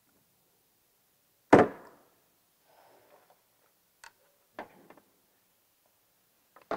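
One sharp knock about a second and a half in, then a few lighter clicks, from a screwdriver and a rear-view mirror being handled while the mirror is screwed onto a motorcycle's front fairing.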